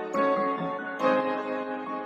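Background music: plucked guitar notes ringing over a soft sustained backing.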